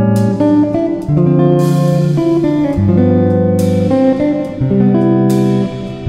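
Instrumental background music led by guitar, with sustained chords that change every second or so.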